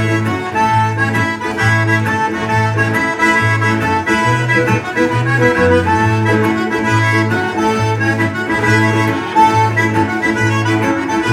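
Live Cajun band music led by a small diatonic button accordion, with a bowed fiddle and a strummed acoustic guitar. Steady alternating bass notes keep an even rhythm underneath.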